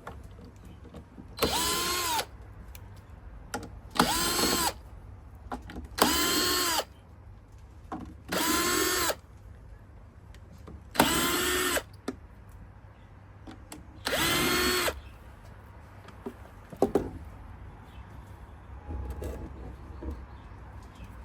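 Power drill run in six short bursts of about a second each, its motor whining quickly up to speed and holding steady each time.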